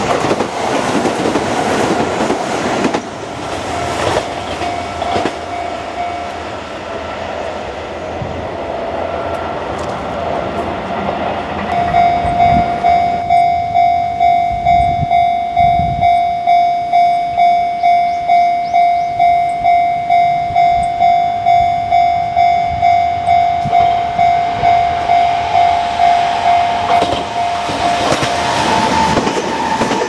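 Railway level-crossing warning bell ringing in a fast, even, repeated tone, loudest through the middle. A Kintetsu 16200 series Blue Symphony train passes over the crossing at the start, its wheels clicking over the rail joints, and another train's running noise builds near the end as it approaches.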